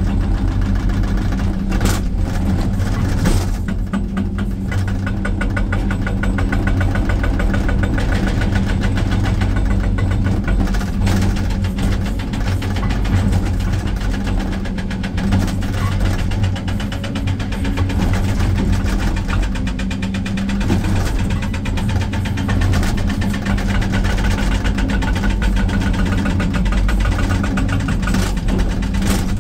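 Excavator-mounted hydraulic rock breaker hammering into rock with rapid, even blows, over the excavator's diesel engine running steadily under load, heard from inside the cab.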